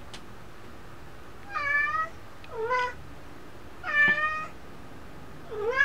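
Domestic cat meowing: four short meows in a row, the first about a second and a half in, roughly a second apart.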